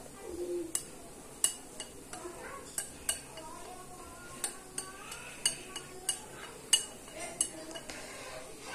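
Metal wire whisk clinking and scraping against a glass mixing bowl as thick semolina cake batter is scraped out: light, irregular clinks, roughly one or two a second.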